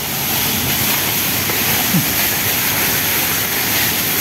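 Steady rushing hiss of water falling over the garden's artificial waterfall.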